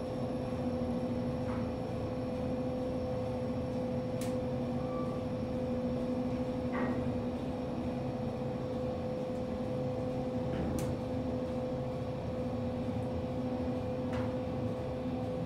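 Kone EcoDisc traction elevator car travelling down two floors: a steady hum with a constant mid-pitched tone, and a few faint ticks along the way.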